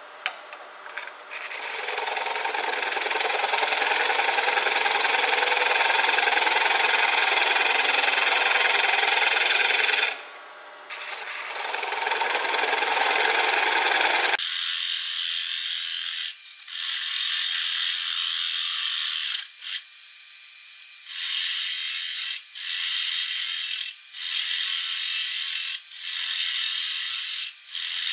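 A 5/8-inch bowl gouge cutting a spinning wooden lid blank on a wood lathe: a long scraping hiss of shavings coming off, broken once, then a run of shorter passes of about a second and a half each with brief pauses between.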